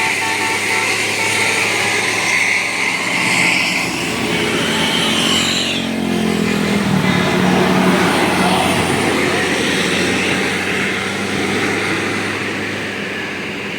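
Road traffic: a bus or other heavy vehicle drives past with its engine running, its engine note sliding about halfway through as it goes by.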